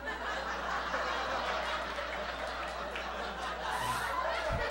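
Audience laughing steadily, a spread of many people's chuckles that rises as the comedian stops talking and carries on for several seconds. A brief low thump comes near the end.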